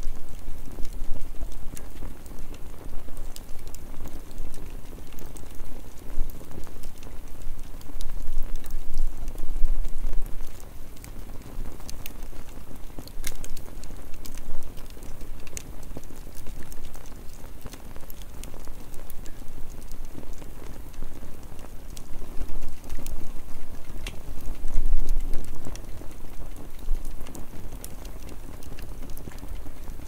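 Wood campfire burning with scattered sharp crackles and pops over a steady low rumble.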